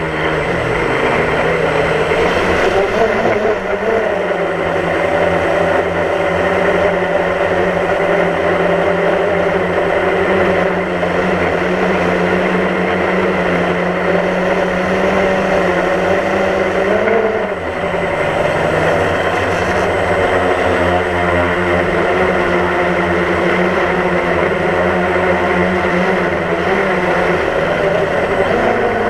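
DJI Phantom quadcopter's four electric motors and propellers whining steadily, heard close up from the GoPro mounted on the drone. The pitch wavers briefly about four seconds in, and rises then dips around seventeen seconds in as the throttle changes.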